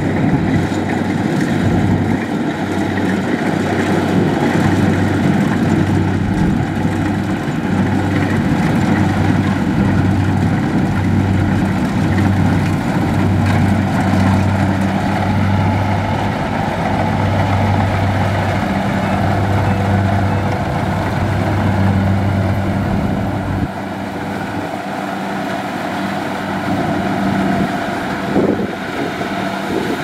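Kubota DC-70 rice combine harvester's diesel engine and threshing machinery running steadily while harvesting, a loud mechanical drone with a deep hum. The deep hum drops away about three-quarters of the way through, leaving a lighter machine noise.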